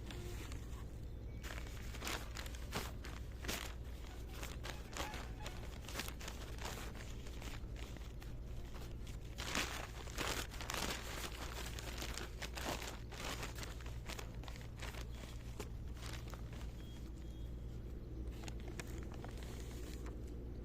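Hands mixing and squeezing a dry fishing-bait mash of rice bran, wheat flour and bread pieces: irregular crackling, rustling and crunching throughout.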